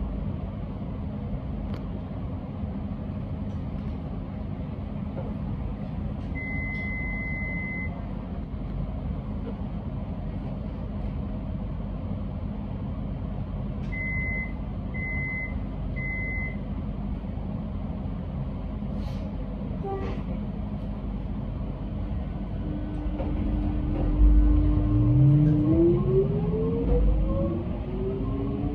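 Metro X'Trapolis electric train standing at a platform with a steady low hum, one long beep and then three short beeps: the door-closing warning. Near the end its traction motors start with a steady tone that turns into a rising whine as the train pulls away.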